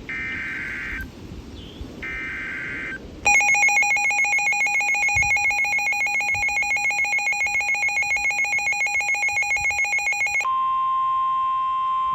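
Emergency Alert System tones for a NOAA Weather Radio severe thunderstorm warning. First come two short buzzy data bursts of about a second each with a gap between them, the coded header. Then a loud pulsing, trilling alert tone lasts about seven seconds, and near the end it gives way to a steady single-pitch warning tone.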